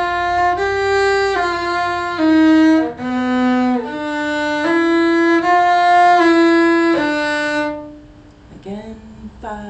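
Cello bowed in a slow warm-up exercise: a row of about ten single held notes, each lasting just under a second, stepping up and down within a narrow range. The playing stops about eight seconds in.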